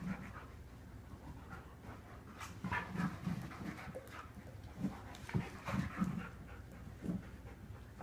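A dog breathing heavily, panting in uneven bursts of short breaths.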